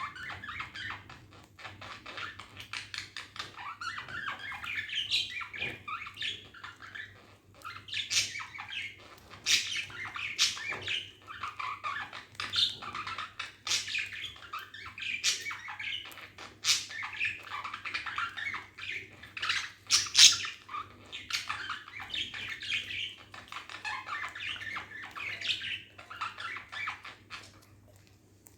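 Pet budgerigars chattering and chirping in a steady warbling stream, with sharp, loud single calls breaking through every second or two.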